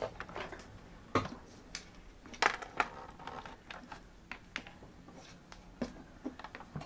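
Light scattered clicks and taps of a network hard-drive enclosure being turned over and set down on a silicone work mat, with a few sharper knocks about a second in and again around two and a half seconds.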